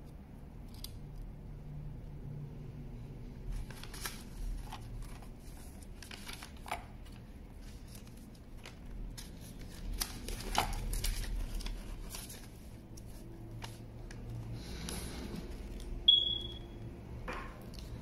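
Paper rustling and crinkling as folded instruction sheets are handled and unfolded, with small clicks and taps among it. About three-quarters of the way through comes one short, high ping that fades quickly, the loudest sound here.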